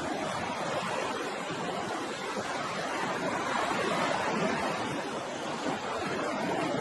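Ocean surf washing steadily on a shore, a continuous rush of breaking water that swells a little partway through.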